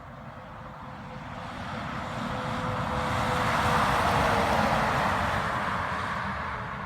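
A semi truck driving past: its engine and tyre noise swells to a peak about four seconds in and then fades. A steady whine drops slightly in pitch as it goes by.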